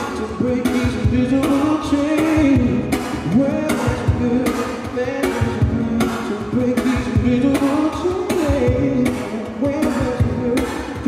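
Live song performance: a wordless male vocal line wavering up and down over accompaniment with a steady beat of about two strokes a second.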